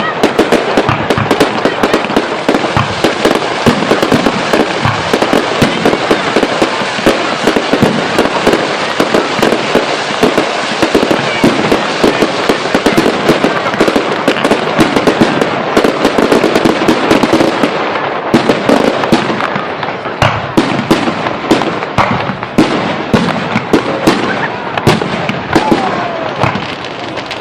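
Fireworks display: a dense, continuous barrage of bangs and crackles that thins out about two-thirds of the way in to separate, spaced bangs.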